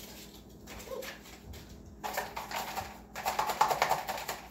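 Kit packaging rustling and crinkling as items are rummaged out of the bottom of a cardboard diamond-painting kit box, quiet at first and then a dense burst of crackling from about halfway through.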